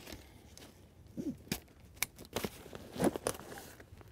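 Nylon backpack webbing and plastic buckles being handled as trekking poles are strapped to a Sierra Designs Flex Capacitor pack: a few scattered short clicks and rustles.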